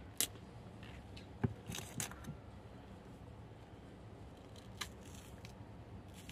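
Faint handling of a banana: a few short clicks and rustles, then a single sharper snap near five seconds in as the top of the banana is broken to start the peel.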